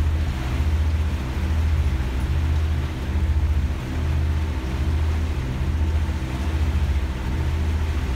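Boat engine running steadily, a low drone that swells and eases about once a second, with the hiss of water and wind over it.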